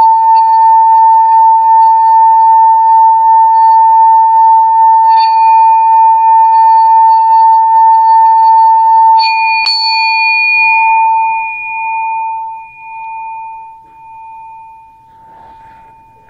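Metal singing bowl rubbed around its rim with a wooden mallet, giving a loud, steady ringing tone with higher overtones. About nine seconds in, the mallet knocks against the rim with a clink, and the bowl rings on, fading away with a slow wobble.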